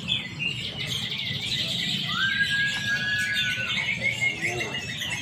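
Several canaries singing at once, a dense, unbroken chatter of trills and chirps. About two seconds in, one clear high note is held steady for about a second.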